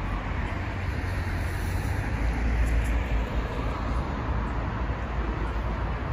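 Steady city street noise of road traffic, with a constant low rumble.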